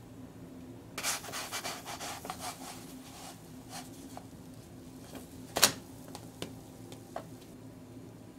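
Chopsticks and a spatula scraping and tapping against a nonstick frying pan while a pancake is worked loose: a quick run of scratchy scrapes about a second in, then one sharp clack a little past halfway, followed by a few lighter taps.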